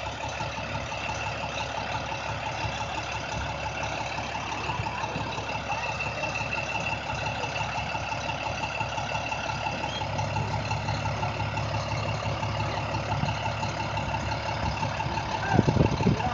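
International DT466 inline-six diesel in a school bus idling steadily. About ten seconds in its low note grows stronger and steadier.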